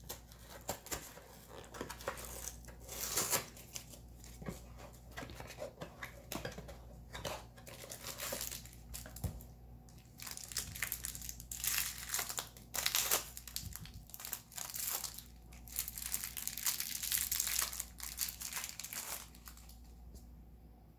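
Plastic card-pack wrapping crinkling and tearing as it is opened by hand, in irregular bursts of rustling.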